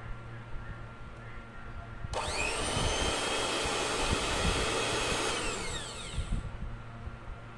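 Electric hand mixer's motor switched on: it starts abruptly about two seconds in and spins up to a steady high whine. After about three seconds it is switched off and winds down with falling pitch.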